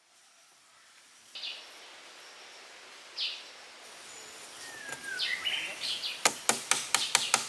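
Small birds chirping, then from about six seconds in a quick, even run of sharp wooden taps, about five a second: a wooden stick knocking a thin wooden peg into a stick railing.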